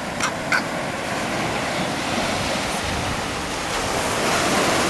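Ocean surf breaking and washing up the beach as a steady rush that swells louder near the end, with wind rumbling on the microphone. Two short clicks come in the first second.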